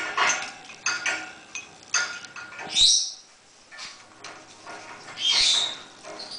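Congo African grey parrot busy at its perch and food cup: scattered beak clicks and taps, with two short, loud, high-pitched sounds about three and five and a half seconds in.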